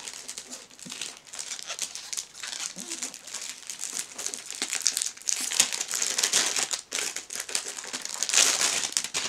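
Clear plastic wrap on a boxed book set crinkling as it is handled and pulled away, an irregular crackle that peaks about halfway through and again near the end.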